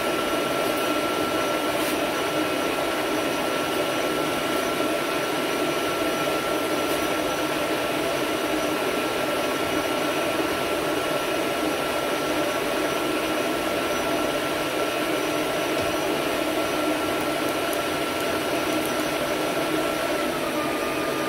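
Hafco AL-356V metal lathe running steadily under a facing cut, a continuous machine hum with a thin steady whine that dips slightly near the end. The tool is set at centre height, so the cut leaves a clean, flat face with no pip in the middle.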